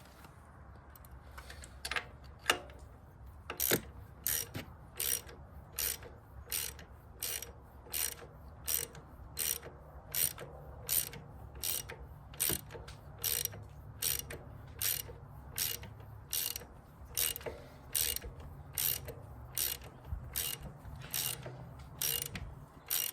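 Ratchet wrench with a 22mm socket clicking in short, even strokes, about one and a half a second, as the new PCV valve is threaded into the valve cover.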